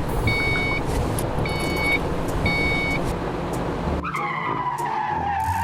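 Vehicle sound effects: a rumbling engine-like noise with a high beep repeating about once a second, then, about four seconds in, a long tire squeal that slowly falls in pitch.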